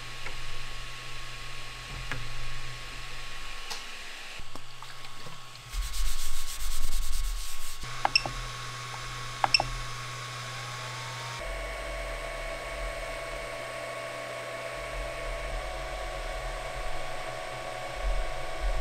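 Voxelab Aquila 3D printer: a few clicks as a knob is pushed onto its extruder, two short beeps from its control panel, then the printer running a print, with fan hum and a steady whine from its stepper motors that changes pitch partway through.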